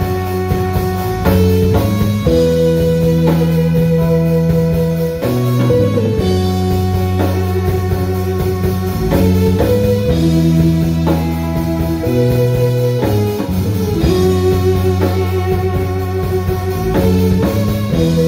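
Live rock band playing an instrumental passage with electric guitar, bass guitar, drum kit and keyboard: held chords changing every second or two over a steady drum beat.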